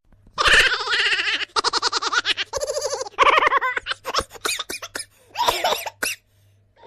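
Laughter: a voice laughing hard in rapid bursts with breaths between, breaking into shorter scattered bursts after about four seconds.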